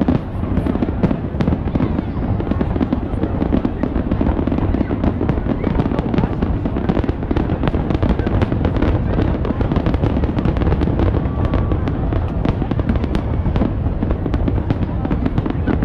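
Fireworks display: a dense, unbroken run of bangs and crackling over a continuous low rumble.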